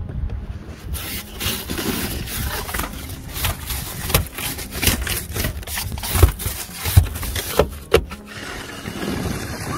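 Snow brush sweeping and scraping thick snow off a car in quick, repeated strokes, with a few sharper scrapes or knocks near the end.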